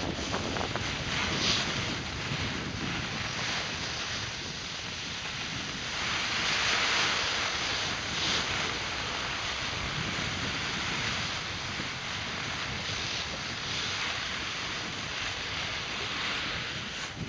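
Steady rushing noise of wind on the microphone, mixed with cross-country skis hissing as they glide over groomed snow. It swells louder about six to nine seconds in.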